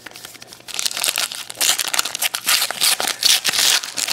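Foil wrapper of a 2011 Panini Prestige football card pack being torn open and crinkled by hand. The crackling starts about a second in and goes on in quick, uneven rustles.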